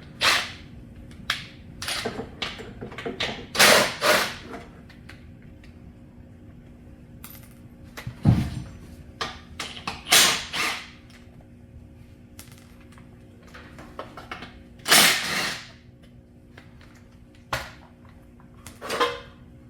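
Irregular clicks and metallic clanks of hand tools and bolts as the sheet-metal blower shroud is unbolted and lifted off a small mower engine, over a faint steady hum.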